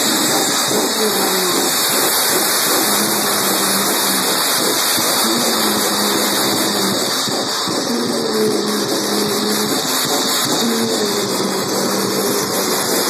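Live harsh-noise performance over a PA: a loud, unbroken wall of distorted electronic noise, with wavering pitched tones weaving through it.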